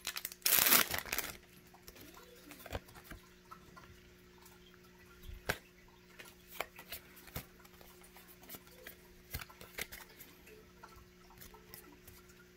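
Foil wrapper of a Pokémon card booster pack crinkling loudly for about a second near the start. Then come scattered light clicks and soft rustles of trading cards being handled, over a faint steady hum.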